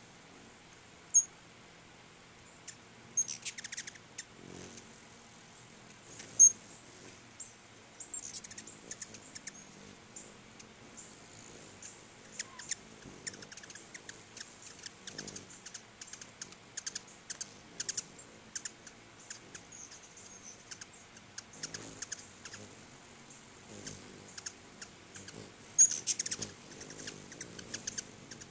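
Ruby-throated hummingbirds making high, quick chip and chatter calls in scattered runs of rapid ticks, with a few sharper single chips standing out.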